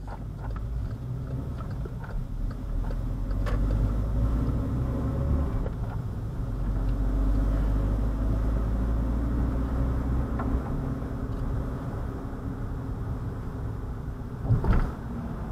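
A vehicle driving: a steady low rumble with a few faint clicks, and one sharp knock near the end.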